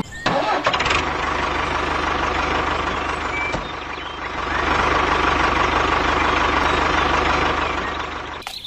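A small machine's motor running steadily with a low hum and a rough rushing noise. It dips briefly, grows louder about four and a half seconds in, then fades near the end.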